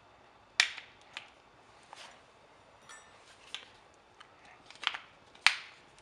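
Sharp clicks of a knife blade and batteries against a plastic keyboard battery compartment, as a wrongly inserted battery is prised out and snapped back in. About six irregular clicks, the loudest about half a second in and near the end.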